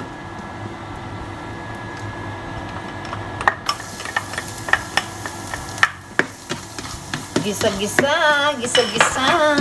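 Minced garlic dropped into hot coconut oil in a nonstick frying pan begins to sizzle about three and a half seconds in, over a steady hum. A spatula then clicks and scrapes against the pan as the garlic is stirred.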